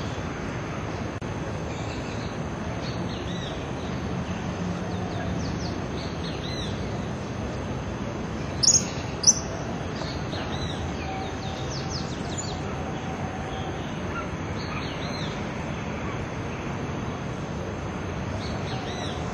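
Birds chirping, many short high calls one after another, over a steady background of outdoor noise; two louder, sharp high calls stand out about nine seconds in.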